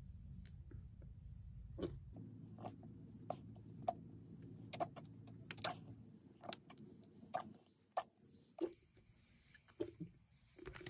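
Thick clear adhesive tape crinkling as fingers squeeze and stretch it into an air bubble: faint, irregular short crackles and clicks of the plastic film.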